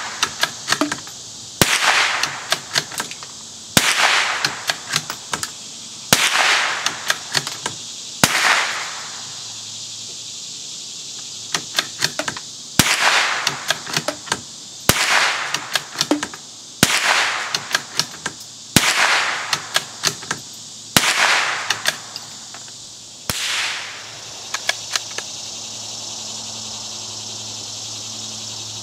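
Ruger American Rimfire bolt-action .22 LR rifle fired about ten times, roughly one shot every two seconds, each sharp crack with a short echo and followed by a few quick clicks as the bolt is worked. There is a pause of about four seconds after the fourth shot.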